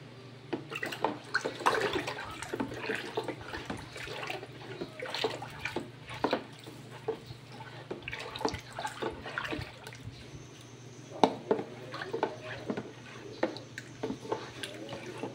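Sweet drink of sago and gulaman sloshing and splashing in a plastic container as it is stirred and scooped, with irregular knocks and clicks, over a steady low hum.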